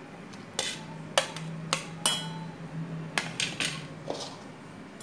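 A series of light clinks and knocks as a knife and plate tap against a stainless-steel mixer-grinder jar while roasted onion pieces are scraped into it, over a faint low hum.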